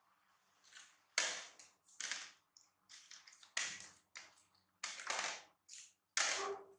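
Short irregular scrapes, knocks and rustles, about a dozen in a few seconds: small monkeys scrambling over a plastic plate and plastic stools on a tiled floor.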